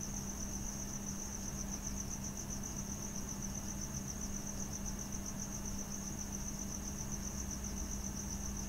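A cricket trilling steadily at a high pitch, with a low steady hum and faint hiss from the recording underneath.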